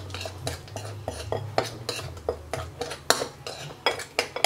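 Metal spoon stirring a thick seasoning paste in a ceramic bowl, clinking against the bowl's sides in quick, irregular clicks, several a second, over a low steady hum.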